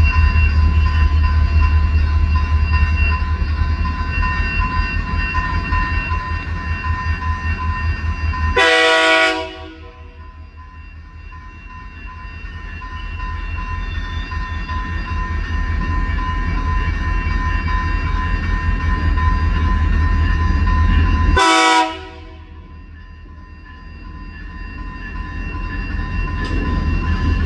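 Diesel freight train rumbling past on metre-gauge track, with two short horn blasts, one about a third of the way in and one later on. Each blast is followed by a sudden drop in the rumble, which then builds back up.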